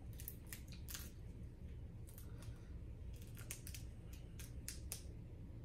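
Gloved fingers peeling the shells off boiled shrimp: a faint, irregular scatter of small crisp clicks and crackles, coming in little clusters.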